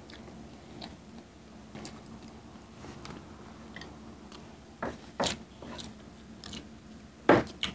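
People eating: chewing and small mouth sounds with light clicks of spoon and fork. A few louder, short sounds come about five seconds in and again near the end.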